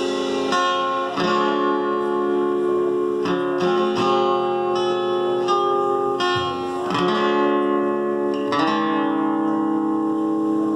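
Acoustic guitar strumming chords and letting each one ring, a new stroke about every second, with no singing.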